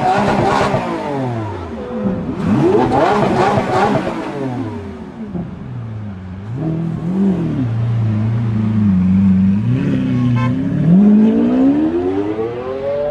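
Lamborghini Aventador's V12 revved hard twice, then running at lower revs with a few pitch steps before accelerating away in a long rising note near the end.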